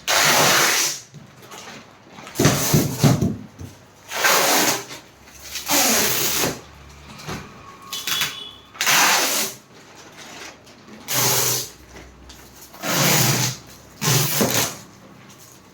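Packing material being pulled and torn in a series of separate rasping strokes, about one every one and a half to two seconds.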